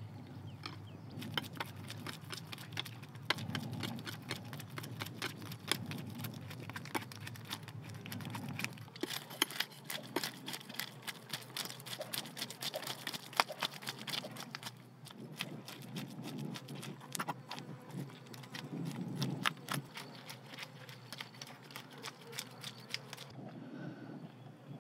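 Knife blade scraping the scales off a carp: long runs of rapid, sharp rasping strokes, many per second, which stop about a second before the end.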